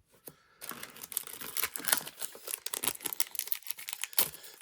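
A foil Pokémon card booster pack wrapper crinkling and crackling as it is handled, with a run of rapid sharp crackles lasting a few seconds.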